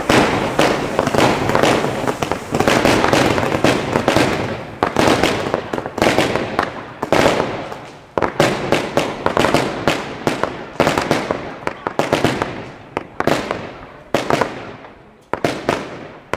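Firework battery firing purple star shots in a rapid, uneven string of sharp bangs, at times several a second, each one ringing out briefly.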